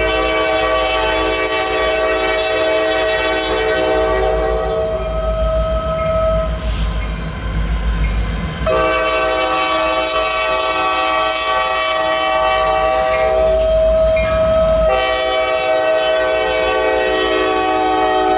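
Norfolk Southern diesel freight locomotive's multi-chime air horn blowing two long blasts, with a third starting a little before the end, over the low rumble of the approaching train.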